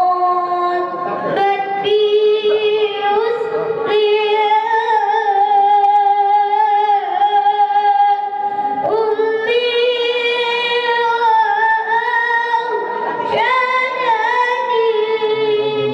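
A high female voice singing a slow, ornamented melody unaccompanied, holding long wavering notes in phrases that break every few seconds.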